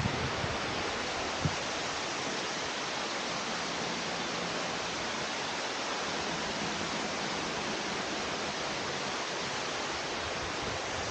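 Steady rush of a waterfall, an even hiss of falling water at constant level, with one small knock about a second and a half in.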